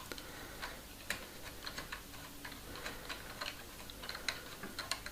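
Plastic LEGO gears in the UCS X-Wing's wing mechanism clicking faintly and unevenly, about three or four clicks a second, as the knob at the back is turned to open and close the wings.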